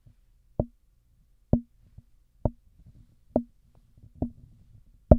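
Fingers tapping on the body of a PreSonus PD-70 dynamic microphone, heard through the mic itself. There are six taps about a second apart, each a knock with a brief low ring, and the last is the loudest. The tapping tests the mic body for resonant frequencies.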